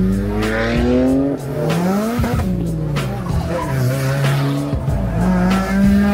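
A car engine revving hard, its pitch climbing over the first second, dropping, climbing again about two seconds in, then settling at a steadier pitch near the end.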